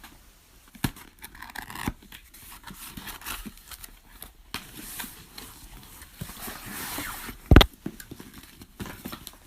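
A boxed tool set's packaging being opened by hand: cardboard and plastic rustling and scraping, with scattered clicks. A loud thump comes about seven and a half seconds in.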